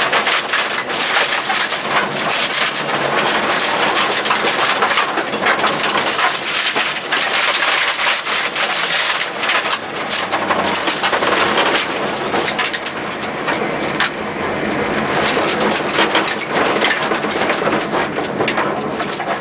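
In-cabin sound of a Mitsubishi Lancer Evo IV rally car driven hard on gravel: a dense rattle of stones and grit hitting the underbody and wheel arches, over road and engine noise. The sound is loud and harsh throughout, and the highest part of the rattle eases somewhat about two-thirds of the way through.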